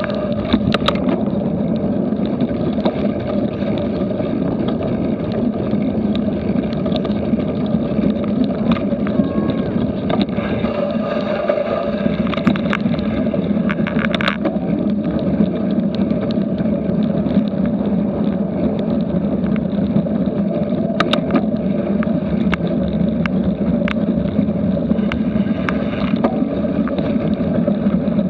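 Steady rushing of wind on an action camera's microphone and bicycle tyres rolling over a gravel path, with scattered sharp clicks and knocks from the bike rattling over bumps.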